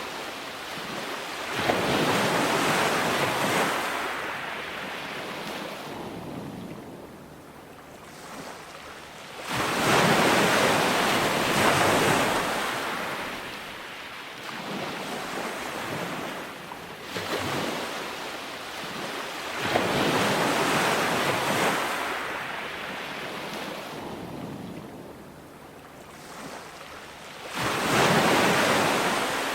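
Ocean waves breaking on a beach: a rush of surf swells and fades roughly every eight to ten seconds, with four big breakers and a smaller one between them.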